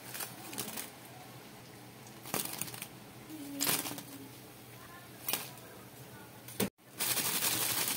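Metal tongs knocking and clinking against a wire-mesh strainer as pieces of fried tofu are set down in it, a few separate knocks a second or so apart. Near the end, after a brief cut in the sound, a dense crackling starts.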